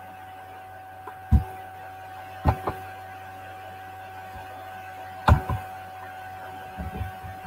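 Steady electrical hum with a faint constant tone, broken by a few short, soft knocks, three of them spread over the first five seconds and some smaller ticks near the end.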